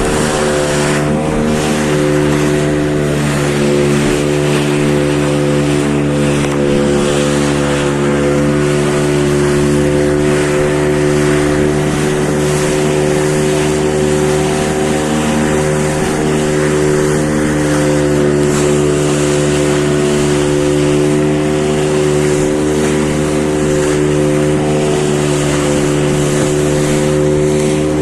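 Boat engine running steadily at a constant speed, a slight waver in pitch in the first couple of seconds, over a steady rush of wind and water.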